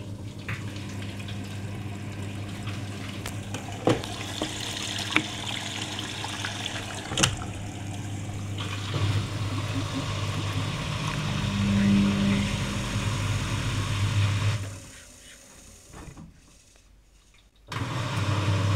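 Arcelik 7103 front-loading washing machine tumbling a wet load: steady motor hum with water sloshing and a few sharp clacks. The drum stops for about three seconds near the end, then starts turning again, as in the back-and-forth tumbling of a wash phase.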